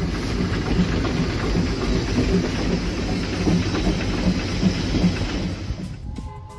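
Steam train running, with rumbling, hissing noise and a regular beat about two to three times a second. It cuts away about six seconds in as music begins.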